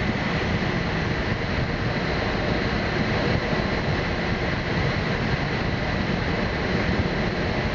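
Steady rush of airflow around the cockpit of a Slingsby Capstan glider under aerotow, even and unbroken.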